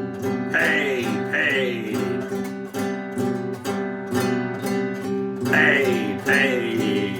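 Instrumental backing music led by guitar, with a steady beat, between the vocal lines of a song.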